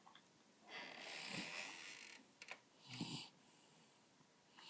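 Sleeping dog snoring: a long breathy inhale-exhale about a second in, then a short rasping snore near three seconds.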